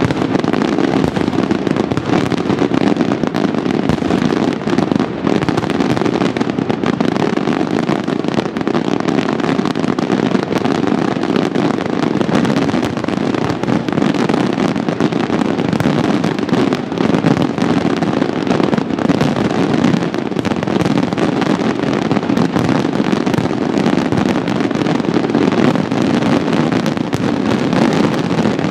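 Fireworks display in a dense, unbroken barrage: many bangs overlapping into one continuous loud din with no pause.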